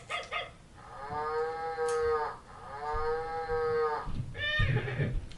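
Electronic toy's speaker playing two long cow moos one after the other, from the VTech Sit-to-Stand Learning Walker's animal sound effects, with a short, different sound near the end.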